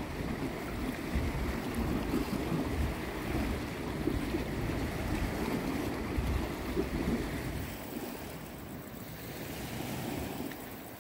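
Sea waves washing against a rocky shore, with wind buffeting the microphone in gusts that ease off near the end.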